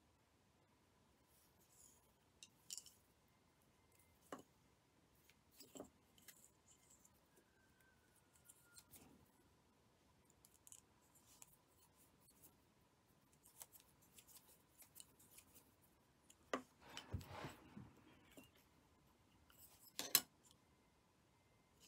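Faint handling sounds of hand tatting: scattered small clicks and light rustles from plastic tatting shuttles and thread being worked between the fingers. There is a brief cluster of rustling and clicks about three-quarters of the way through and a sharp click near the end.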